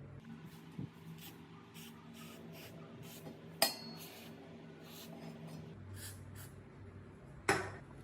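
Metal parts clinking and knocking as they are handled, a series of light taps with two sharper metallic clinks that ring briefly, about a third of the way in and near the end, over a steady low hum.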